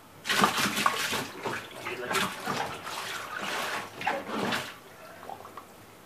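A hand sloshing and splashing through the shallow water left in the bottom of a washing machine's plastic wash tub after draining, in irregular bursts for about four and a half seconds, then stopping.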